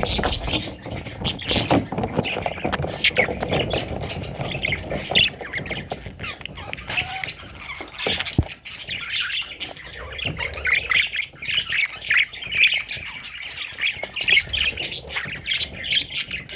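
Budgerigars chattering and squawking, a dense, continuous stream of short overlapping calls with scattered sharp clicks.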